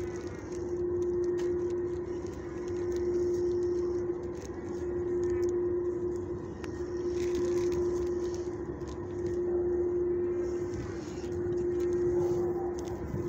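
A steady machine hum on one low tone, swelling and fading regularly about every two seconds.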